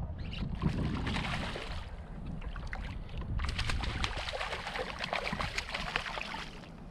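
A hooked redfish thrashing and splashing at the water's surface beside the kayak, in two spells: over the first two seconds, then again from about three seconds in until shortly before the end.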